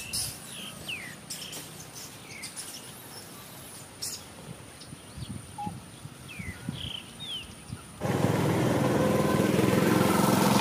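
Outdoor ambience with a few short, high, falling chirps and small clicks. About eight seconds in, a louder, steady small-engine hum starts abruptly and keeps running.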